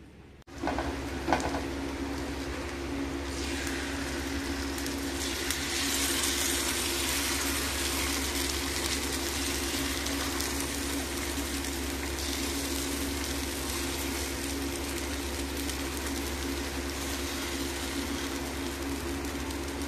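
Jaggery-and-flour batter sizzling on a hot iron tawa as it is spread thin by hand, a steady hiss that strengthens a few seconds in, over a steady low hum.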